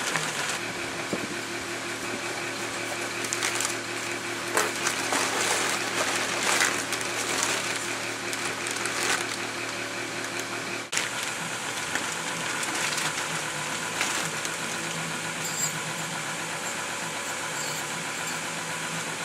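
Steady mechanical hum in the room. From about three and a half seconds in to about ten seconds, a package is being opened, with irregular crinkling and rustling of the wrapping.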